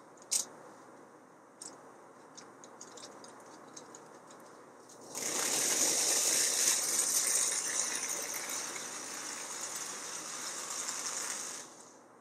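Vintage tinplate toy train locomotive on its track: a few faint clicks, then its electric motor and wheels start running about five seconds in with a steady whirring rattle, which stops suddenly shortly before the end. The locomotive is reluctant to start on its own, which the owner puts down to poor electrical contacts.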